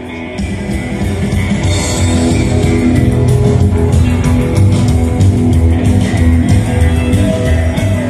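Live rock band playing through a PA, led by guitar over bass and a steady beat, getting louder about half a second in.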